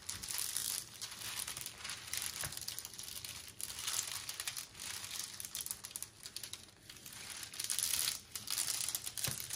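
Plastic cover film on an adhesive diamond-painting canvas crinkling and crackling as it is handled and pulled back from the very sticky glue, in irregular bursts.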